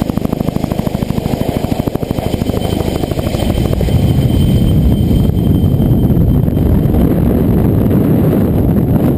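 Vertol 107-II tandem-rotor helicopter in flight: a rapid, even rotor beat of about a dozen pulses a second, which gives way about four seconds in to a louder, steady rush of rotor and wind noise.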